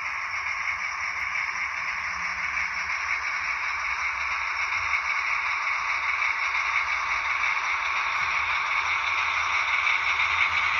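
Model train running on Märklin track: a steady rolling whir from the passenger coaches' wheels and the Märklin BR 212 diesel locomotive model. It grows slowly louder as the locomotive draws near.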